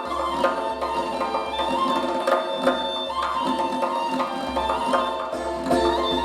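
Live Persian classical music played on tar, ney and tombak, with sustained melodic notes over frequent hand-drum strokes.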